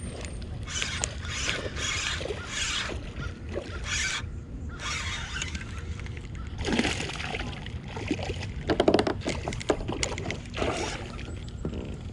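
Water splashing and sloshing in irregular bursts beside a fishing boat, over a steady low rumble. The splashes grow louder and busier in the second half.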